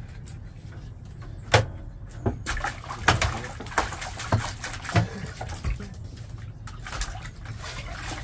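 Water splashing and sloshing, with irregular sharp knocks and clicks, most of them bunched together from about two and a half to four seconds in.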